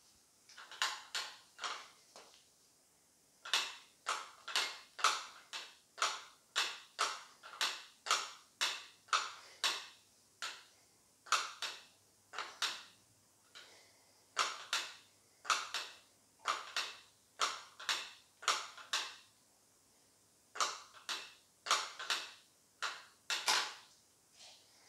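A steady rhythm of short sounds, about two a second with a few brief pauses, keeping time with the reps of a seated overhead dumbbell tricep extension.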